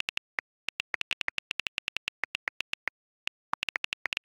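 iPhone on-screen keyboard clicks as a message is typed: quick taps, several a second, with a short pause about three seconds in.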